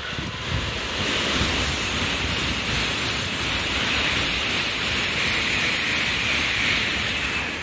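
N700-series Shinkansen passing at high speed: a loud, steady rush of air and wheel-on-rail noise that starts suddenly and fades near the end, with its slipstream buffeting the microphone.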